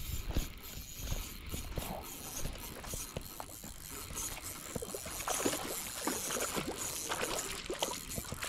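Irregular light clicks and knocks over a low, steady rumble of wind.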